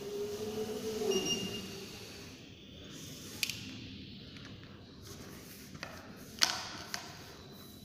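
Hoverboard hub motors whining with a low hum as the board rolls across a tiled floor, falling away about a second and a half in as it slows to a stop. Then a few sharp clicks and knocks as the board is handled, the loudest about six and a half seconds in.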